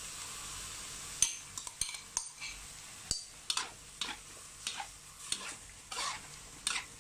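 Pork sizzling in a pan with its freshly added seasoning sauce. From about a second in, a utensil scrapes and stirs through it in repeated strokes, roughly one or two a second.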